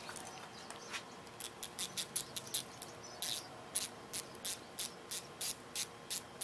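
Ratcheting wrench clicking in short strokes, about three clicks a second, starting about a second in, as the camshaft synchronizer's hold-down bolt is run down.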